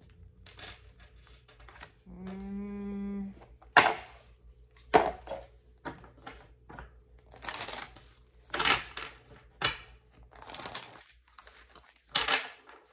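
Tarot cards being shuffled and handled: a run of irregular papery riffles and sharp snaps, the loudest about four and five seconds in. A short hummed 'hmm' comes about two seconds in.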